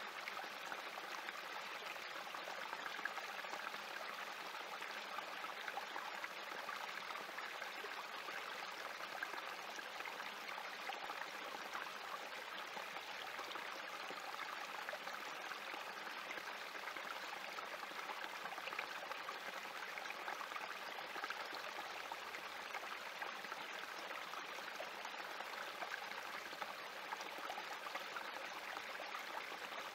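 Small spring-fed creek trickling and splashing over rocks in a shallow cascade, a steady babble of running water.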